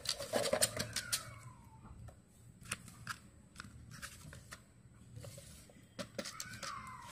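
A cardboard toy box and a folded paper instruction sheet being handled, giving scattered light clicks and paper rustles. Twice, about a second in and again near the end, a faint falling call sounds in the background.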